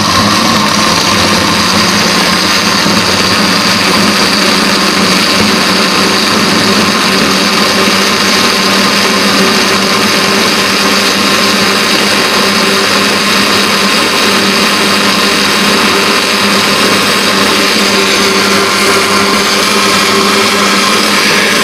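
Electric blender running steadily, its motor whining without a break as it blends chopped ginger with water into a ginger juice.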